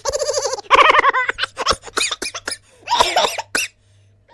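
A person laughing in quick pulses, then a run of short clicks and breathy bursts that fade to a brief pause near the end.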